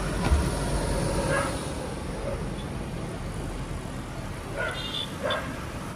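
A dog barks in short calls, once about a second in and twice near the end, over wind rumble on the microphone and passing street traffic.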